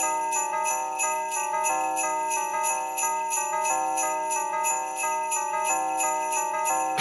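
Christmas-style film score: sleigh bells shaken in a steady beat, about four shakes a second, under a slow melody of held notes.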